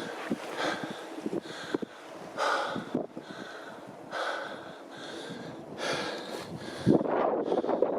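Heavy breathing of a hiker climbing a steep trail, a loud breath about once a second. About seven seconds in, wind buffets the microphone.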